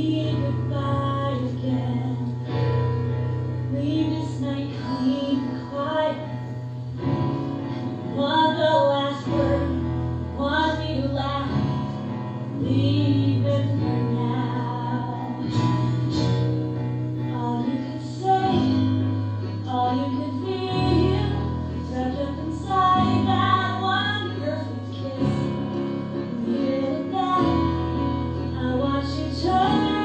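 A woman singing a musical-theatre song live, accompanied by piano and guitar, with sustained low chords changing every couple of seconds under the vocal line.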